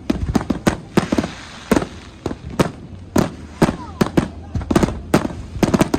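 Fireworks going off: an irregular string of sharp bangs, about three a second, over a continuous background hiss.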